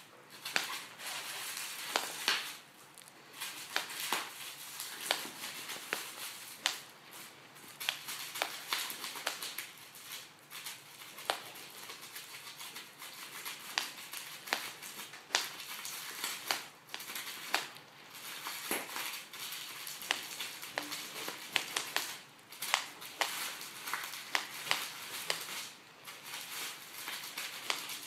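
A sheet of bubble wrap crinkling under a raccoon's handling, with many sharp pops at irregular intervals as the bubbles burst.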